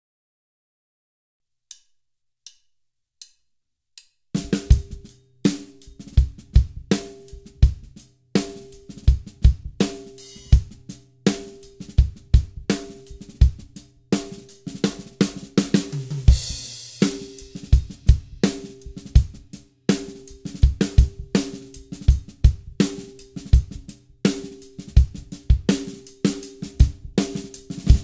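Four light clicks count in, then a drum kit plays a steady groove around a Dunnett 14x6 snare drum, its tension rods set one full turn past finger tight, with bass drum hits and a cymbal wash about sixteen seconds in.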